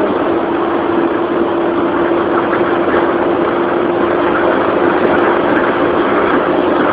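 Car engine running steadily at constant speed, with a steady droning tone over a wide rushing noise.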